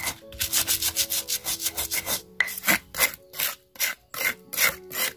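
Stone pestle (ulekan) grinding garlic, shallots, candlenut and chillies with salt on a black stone cobek mortar. Quick rasping back-and-forth strokes, then slower, separate strokes from about two seconds in.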